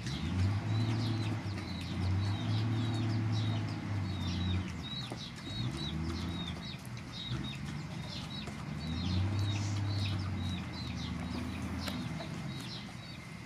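Chickens clucking low in drawn-out stretches, with a steady run of short, high peeps, a few a second.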